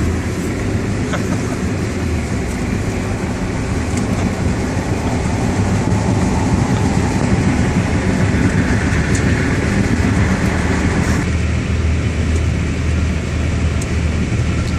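Steady engine and road noise inside a car cabin, a low hum under a broad hiss. About eleven seconds in, the hiss drops away and the low hum grows.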